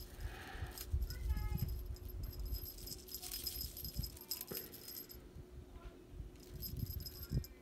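Cat teaser wand being swung and shaken, its beaded string and feather attachment jingling in bursts, longest in the middle and again near the end, with soft low knocks between.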